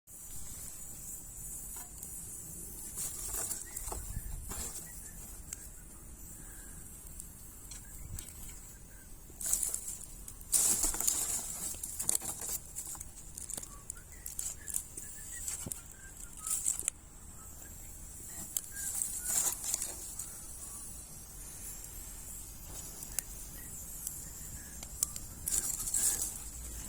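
Wood gas stove burning wood: irregular crackling and popping from the fire, busiest about ten seconds in, over a steady high hiss.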